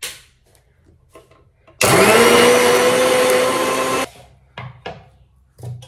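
Electric kitchen mixer grinder blending fruit for juice. The motor spins up about two seconds in, runs at a steady speed for about two seconds, then stops abruptly. Light knocks and clicks of the jar being handled come before and after.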